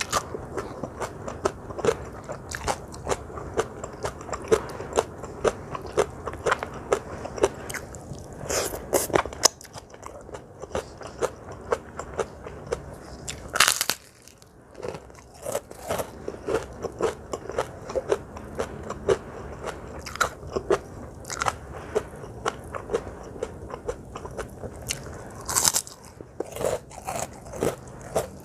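Close-miked chewing and crunching of food in the mouth, many small wet clicks, with a few louder crunchy bites spread through.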